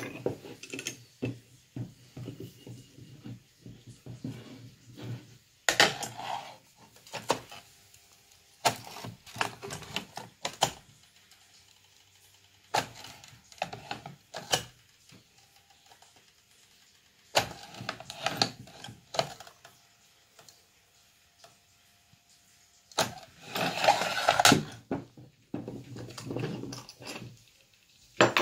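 Irregular metal clinks, clanks and knocks as an aluminium sinker mould is handled: a T-handle key is worked in its screws, the mould is set under a lead-melting pot and put down on a wooden table. Bursts of handling noise come with quiet gaps between them.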